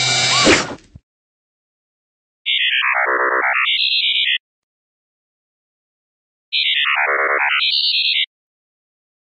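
Synthesized electronic robot sound effect played twice, each about two seconds long: a stepped tone that sweeps down in pitch and then back up. It follows the last second of a busier mechanical whirring effect that cuts off about a second in.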